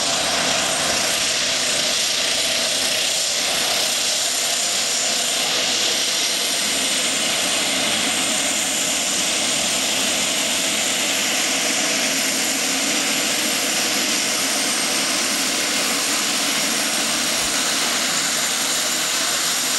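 Twin-turboprop commuter plane (Let L-410 Turbolet type) taxiing on a dirt airstrip with both engines running: a steady, unchanging turbine whine over propeller noise.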